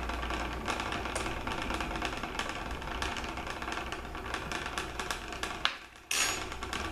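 A small container rattling in a saucepan of boiling water: a fast, steady clatter of small knocks that drops out briefly near the end.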